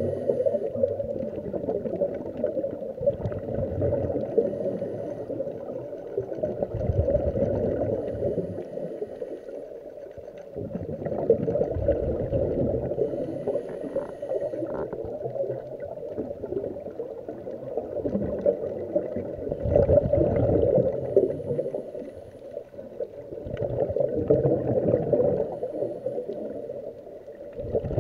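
Scuba breathing underwater: regulator exhaust bubbles gurgling in repeated swells a few seconds apart, with quieter gaps between breaths, muffled through the camera's waterproof housing.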